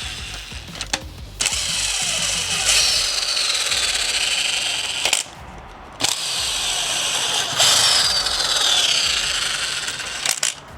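Power tool running in long bursts while loosening engine bolts, with a faint falling whine in each run. It stops about five seconds in, starts again a second later, and stops just before the end.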